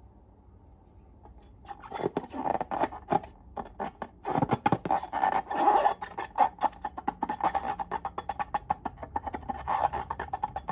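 Slime being squeezed and kneaded, giving off rapid, irregular clicking and popping as air pockets burst; the clicking starts about two seconds in and keeps going.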